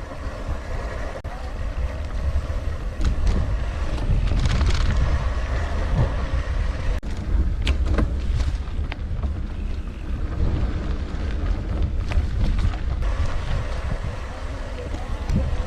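Heavy wind rumble on the microphone of a mountain bike in motion, with scattered clicks and knocks from the bike rattling over rough trail.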